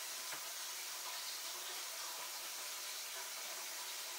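Kitchen tap running steadily, rinsing mixed vegetables in a colander in the sink.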